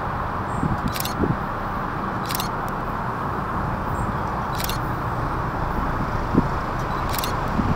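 Class 201 'Thumper' Hastings diesel-electric multiple unit approaching, its English Electric diesel engine and the train's movement heard as a steady rumbling noise. Short high-pitched hisses come every second or two.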